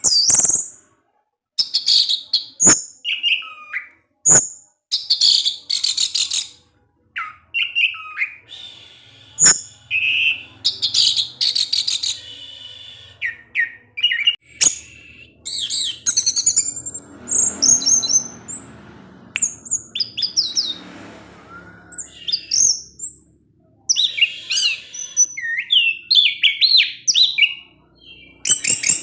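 Orange-headed thrush singing a long, rambling song of short, varied whistled phrases with brief pauses between them, and a few sharp clicks.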